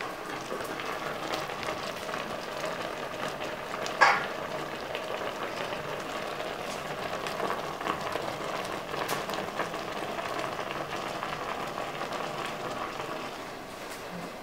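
A pot of cut vegetables simmering over a charcoal stove: a steady bubbling, crackling hiss. A single sharp knock comes about four seconds in.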